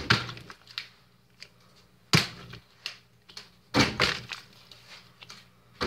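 Plastic water bottle being flipped and landing with hard thunks: three loud ones about two seconds apart, with lighter knocks in between.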